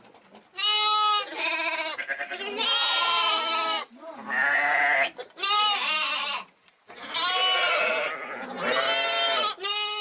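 Young sheep bleating: about seven quavering bleats in a row, each about a second long, with short gaps between them.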